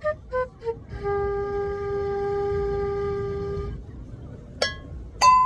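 A quick run of short notes stepping down in pitch, then one long steady horn-like tone held for nearly three seconds, then two sharp ringing strikes near the end.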